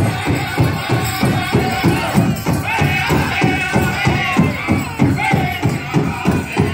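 Powwow drum group playing a chicken dance song: a big drum struck in a fast, steady beat, about four beats a second, with the singers' high, wavering voices coming in about two and a half seconds in.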